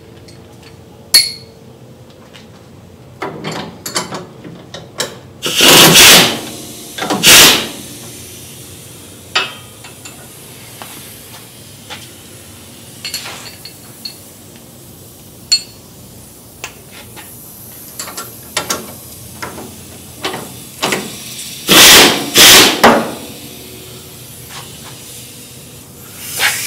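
Wrench and ratchet work on the sway bar end link nuts of a 2003 Ford Ranger, tightening them to even up the exposed thread on both sides: scattered metallic clicks and clinks. Four short, loud bursts of a tool come in two pairs, about six seconds in and again near twenty-two seconds.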